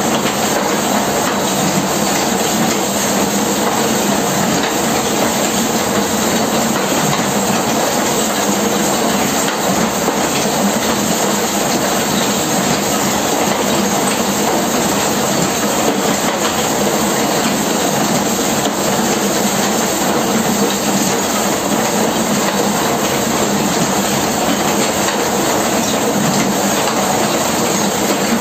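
Rotary huller running: its large metal drum turns with lignite tumbling and being pounded inside, a loud, steady, dense clatter with a hiss.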